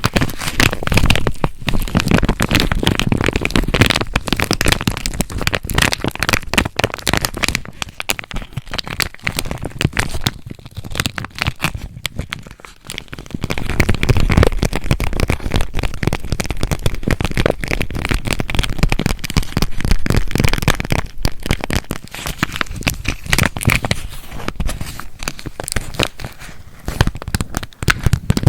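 Cat-paw squishy toy squeezed and handled inside its unopened plastic packaging: a dense, irregular crackling and crinkling of the plastic, in louder and quieter spells.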